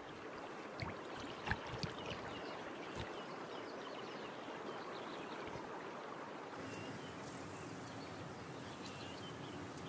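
Faint river ambience: a soft, steady wash of water with a few small splashes in the first three seconds, and faint high chirps in the background.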